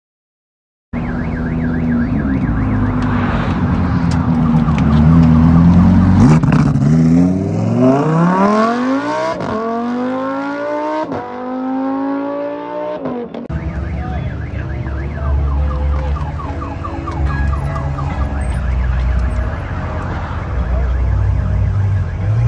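Car engines held at steady revs, then accelerating hard from a standing start, their pitch climbing with two gear changes before cutting off suddenly. After that, another car's engine runs and revs unevenly.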